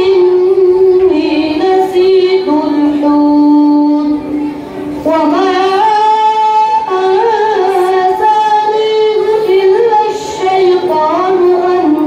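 A boy reciting the Quran in the melodic tajweed style: one high voice drawing out long held notes with ornamented turns and slides in pitch, with a short breath break about four seconds in.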